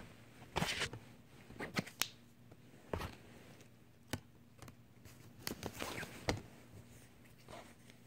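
Irregular light clicks, taps and knocks, about eight in all, from small objects being handled, over a faint steady low hum.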